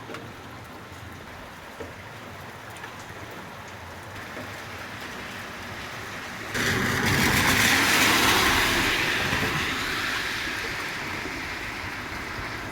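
Steady rain falling, then about six and a half seconds in a loud vehicle passing noise starts suddenly, peaks, and fades slowly away under the rain.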